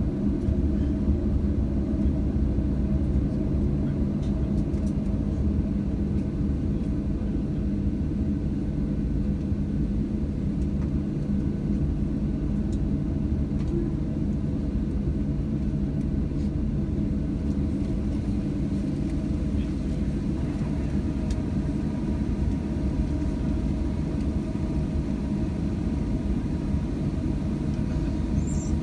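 Steady low drone inside the cabin of a Boeing 737-700 on the ground, unchanging throughout.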